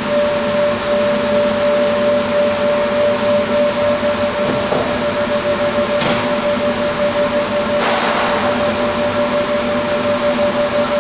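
Automatic MDF panel cutting machine running with a steady hum and a constant whine, with two short swells of rushing noise about six and eight seconds in.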